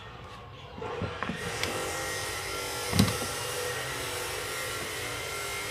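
Pliers and a plastic electrical socket being handled on a workbench: a few light clicks, then one sharp knock about three seconds in. A steady hiss starts about a second in and keeps going.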